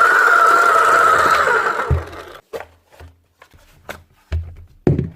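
Electric motor of a Makita HM1101C demolition hammer, a tool with a bad motor, running loudly for about two seconds with a high whine, then cutting off. Several scattered knocks and low thumps follow.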